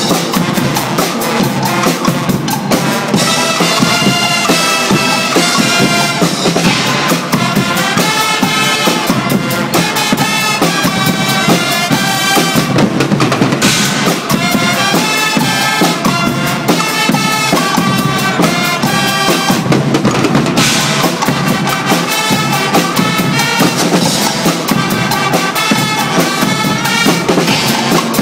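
Swiss carnival Guggenmusik band playing loudly: massed trumpets, trombones and sousaphones over a drum kit and cymbals.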